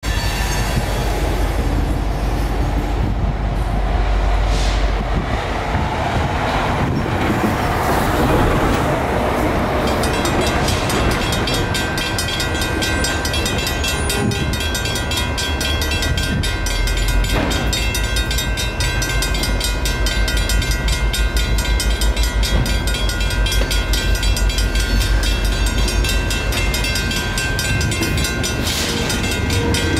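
Railroad crossing's mechanical bells ringing rapidly and steadily from about ten seconds in, over the low rumble of a train.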